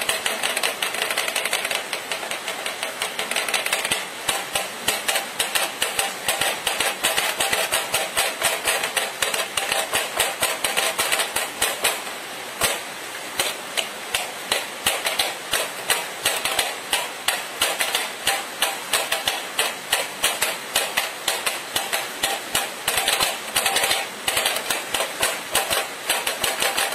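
A boy drumming a fast rhythm with his forearms on a small box on a tabletop: quick, sharp taps, several a second, softer for the first few seconds and then crisper and more accented.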